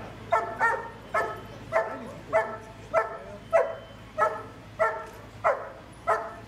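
Dog barking over and over in a steady rhythm, about one bark every half second or so.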